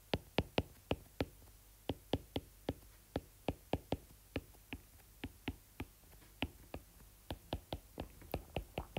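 Stylus tip tapping on a tablet's glass screen while handwriting letters and bond lines: light, quick, irregular clicks, several a second.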